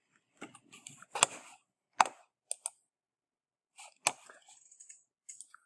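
A handful of sharp computer mouse clicks, the loudest about a second, two seconds and four seconds in, with lighter ticks and rustling between.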